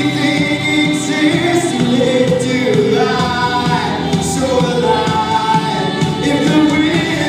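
Live worship band and a group of singers performing a song together, several voices singing over keyboard and band accompaniment.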